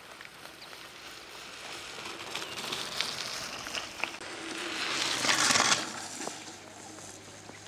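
Mountain-bike tyres crunching and hissing over wet gravel as a rider approaches and passes close, loudest a little after five seconds in, over light rain pattering.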